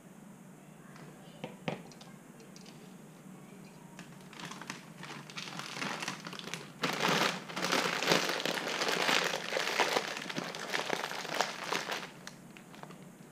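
Plastic packaging crinkling and crackling as it is handled, in a long busy stretch from about four seconds in to about twelve seconds in, after a couple of small clicks.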